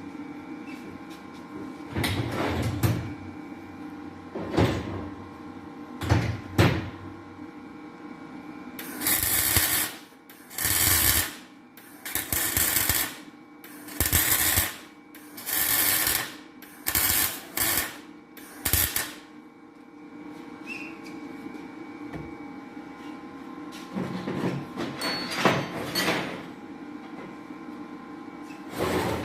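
Welding beads being run onto an engine's valve seats: a run of about eight separate bursts of crackling arc, each roughly a second long, starting about a third of the way in, over a steady shop hum. A few short knocks or clanks come earlier and near the end.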